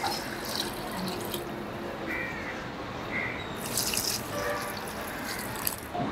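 Rice-rinsing water poured from a metal pot onto the soil of potted plants, splashing and trickling in two spells: one at the start and another about four seconds in.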